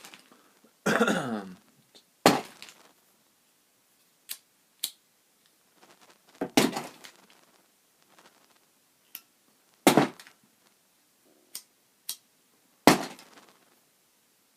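Lighters clacking against each other and knocking on a hard surface as they are picked up and set down: about a dozen separate sharp clicks and knocks, a few of them louder, with short pauses between.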